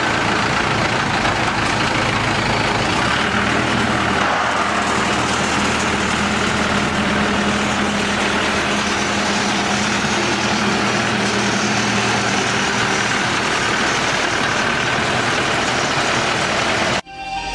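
Pneumatic rock drilling rig's engine running steadily, a loud even hum under a constant hiss. It cuts off abruptly near the end, giving way to music.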